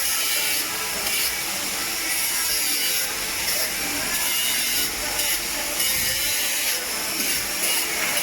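Steady machine noise in a uPVC fabrication workshop, mostly a high hiss that swells and fades in stretches of a second or two.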